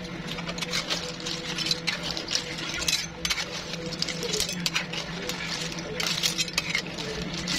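Clams in their shells being stirred with a spatula in a metal pan of broth: a quick, irregular clicking and clinking of shells against each other and the pan, getting busier about halfway through.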